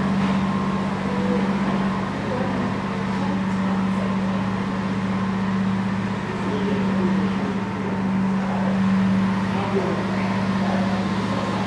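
Funicular car running into its station: a steady low hum from the cable-hauled car and its machinery, level throughout with no sudden events.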